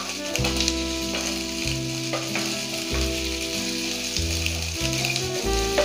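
Sliced onions frying in hot oil in a stainless steel pan, a steady sizzle with small crackles, as a plastic spoon stirs them around.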